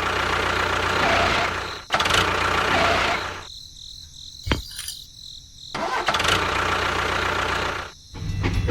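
A small motor running with a rough, noisy sound and a steady low hum. It is heard in short pieces with abrupt cuts between them, and a quieter stretch in the middle holds a single sharp click.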